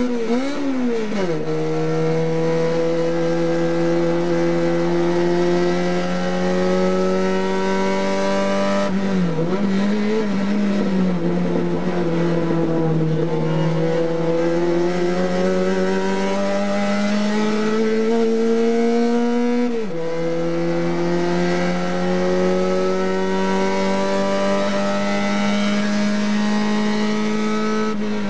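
Onboard sound of a TC 850 race car's engine under full throttle, heard from inside the cockpit. The pitch climbs slowly along the straights and drops sharply as the driver lifts for corners: about a second in, around nine seconds with a wavering stretch after it, and around twenty seconds.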